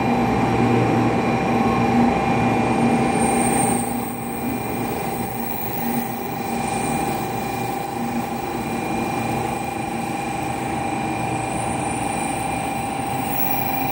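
N700A-series Shinkansen train pulling slowly into the platform: a steady rumble of wheels and running gear with a constant high whine, loudest in the first four seconds and then easing.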